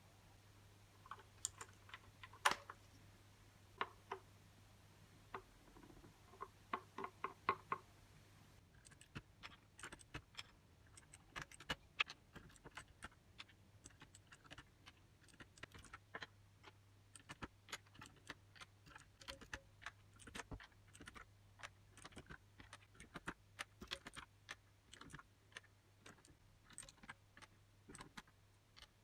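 Typing on a mechanical keyboard: a few scattered keystrokes and short runs at first, then continuous typing from about nine seconds in.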